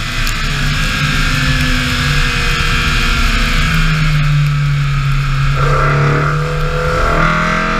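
BMW E30 M3 rally car's four-cylinder engine running hard at speed, with a hiss of tyres and spray on wet tarmac. Its pitch sinks slightly, changes about five and a half seconds in, then climbs steadily as the car accelerates.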